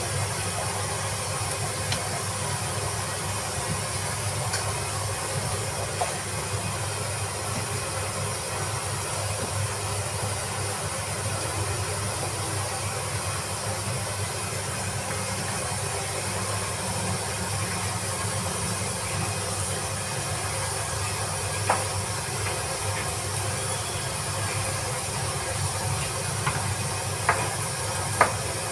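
Steady hiss with a low hum from kitchen equipment running, with a few faint clinks of utensils in the second half.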